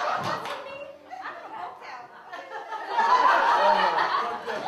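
Audience laughing and chattering, with a louder swell of laughter and voices about three seconds in.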